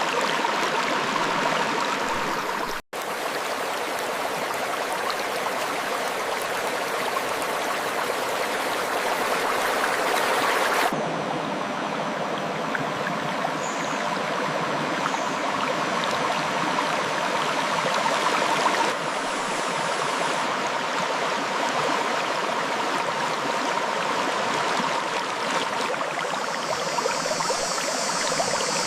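River water flowing over rocks, a steady rush. It drops out for an instant about three seconds in, and its tone shifts abruptly at about 11 and 19 seconds.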